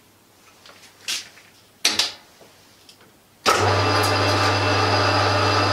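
A few light clicks and a knock, then a Warco GH-1330 gear-head metal lathe is switched on about three and a half seconds in. Its motor and headstock run steadily with a low hum, not yet cutting.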